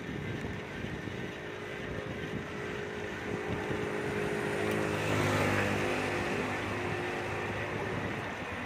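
A motor vehicle passing close by, its engine hum swelling to a peak about five seconds in and then fading, over the steady wind-on-microphone and rolling noise of a bicycle ride.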